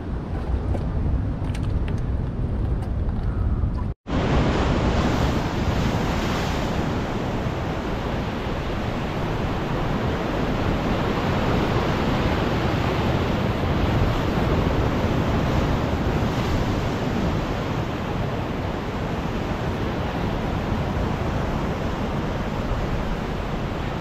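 Ocean surf breaking and washing over sea rocks, a steady rushing with wind on the microphone. The sound drops out for a moment about four seconds in.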